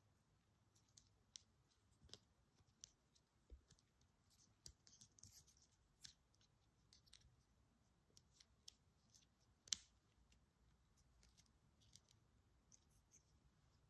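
Faint, scattered clicks and light scrapes of a small plastic robot toy's parts and joints being handled, turned and folded, with one sharper snap about ten seconds in.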